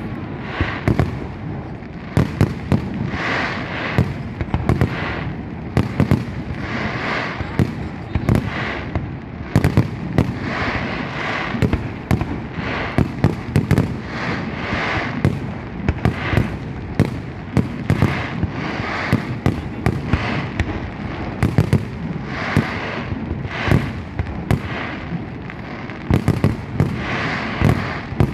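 Fireworks going off in a continuous barrage: dense, sharp bangs and crackles, several a second, with no let-up.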